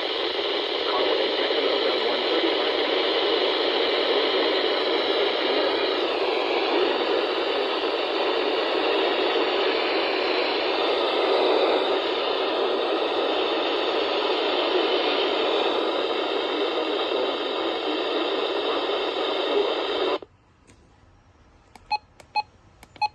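Steady static hiss from a NOAA weather radio receiver, with no voice. It cuts off abruptly about twenty seconds in, and a few short clicks follow near the end.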